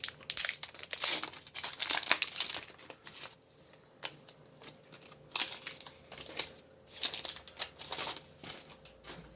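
Foil Pokémon booster pack being crinkled and torn open by hand: dense crackling for about the first three seconds, then scattered crinkles and clicks.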